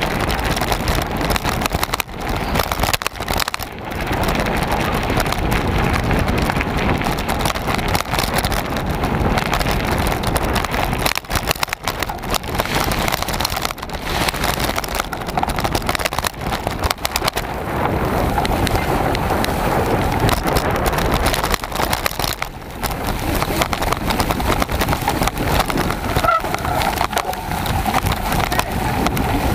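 Mountain bike ridden fast over a dirt farm track and stubble field, picked up by a bike-mounted camera: a continuous rush of wind on the microphone with tyre noise and rattling jolts over the bumps.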